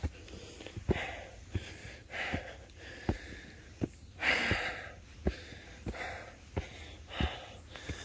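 A hiker's heavy, rasping breathing close to the microphone, with the thud of footsteps on trail steps about every three quarters of a second; the loudest breath comes a little past the midpoint. The hiker is out of breath from the steep climb.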